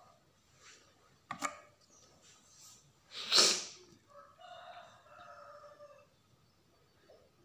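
A rooster crowing once: a harsh, loud onset about three seconds in, then a held, slightly wavering note for about two seconds. A single sharp click comes before it, about a second and a half in.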